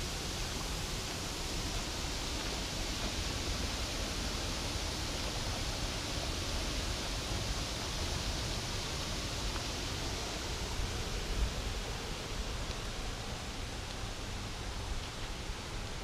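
Steady rushing of a small waterfall and stream running with little water. It swells in the middle and fades near the end, with a low rumble underneath and a single bump about eleven seconds in.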